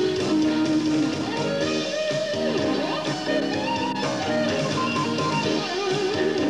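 Live band playing an instrumental passage led by a Stratocaster-style electric guitar, with drums underneath.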